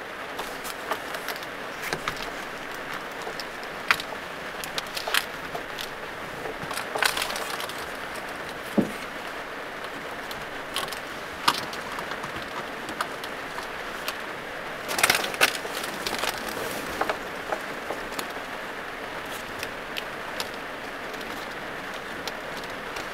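Steady rain falling on a small van's roof, with scattered clicks and rustles as quilted insulated window shades are handled and pressed into the windows. A quick run of louder clicks comes about fifteen seconds in.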